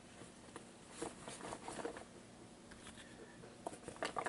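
Faint scattered clicks, taps and light rustling of objects being moved about on a tabletop, in two clusters about a second in and near the end.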